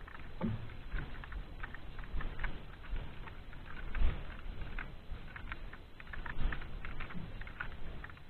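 Irregular light ticking and patter, with a louder knock about four seconds in, as handline fishing line pays off a hand-held spool while the stone sinker goes down.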